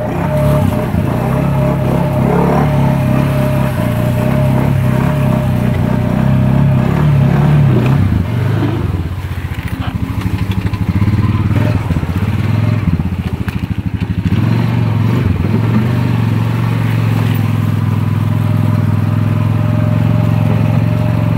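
ATV engine running as it is ridden. The revs and loudness drop about eight seconds in, and the engine pulses slowly, as though lugging, then picks up again, with a second brief dip around thirteen seconds in.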